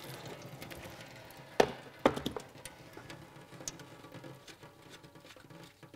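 Two sharp metal clanks about half a second apart, a spanner knocking on the bolts of a car's oil filter cover plate as they are undone, followed by light ticks and taps of hand work on the bolts.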